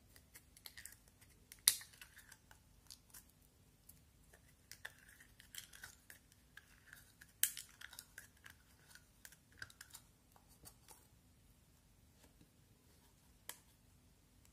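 Slime being squeezed out of small plastic jars and pressed together by hand: faint sticky crackles and soft clicks, with two sharper snaps about two seconds in and again about seven and a half seconds in.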